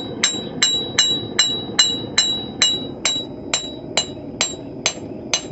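Blacksmith's hammer striking steel on an anvil in a steady rhythm, about two to three blows a second, each blow with a bright metallic ring; the hammering flattens a forged scroll.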